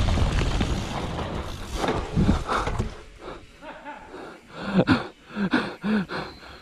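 Wind buffeting and trail rumble of a mountain bike ride on a dirt trail, dying away about three seconds in as the bike slows. Then a rider panting hard, with short voiced gasps about twice a second near the end.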